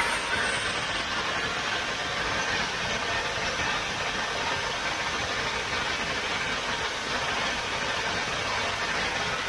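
Fully automatic crystal-pendant making machine running, a steady even mechanical noise.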